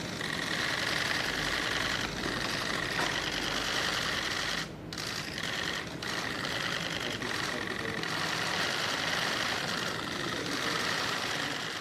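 Many camera shutters clicking rapidly and continuously, a dense clatter of overlapping bursts, with a few short dips around two, five and six seconds in.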